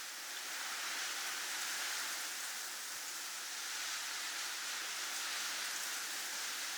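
Snowfall ambience sound effect: a steady, soft hiss that swells and eases gently every few seconds.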